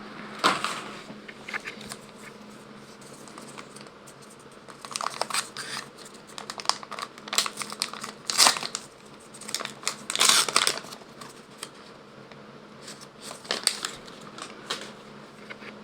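Pokémon card pack wrappers being crinkled and torn open, in several short bursts with pauses between.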